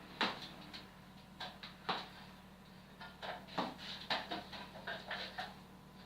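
A string of irregular light knocks and clicks, some close together, loudest just after the start and again at about two seconds, over a steady low hum.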